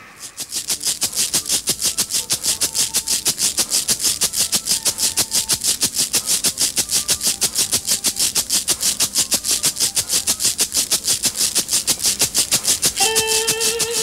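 A shaker played alone in a fast, even rhythm, with a few faint held notes behind it. An electric guitar comes in near the end.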